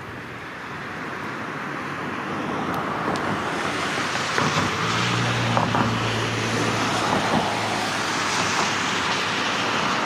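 Road traffic noise that swells over the first few seconds, with a passing vehicle's low engine hum in the middle.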